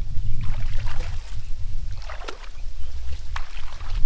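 Wet mud squelching and splashing as hands dig into a muddy eel hole: a few short sharp squelches over a steady low rumble on the microphone.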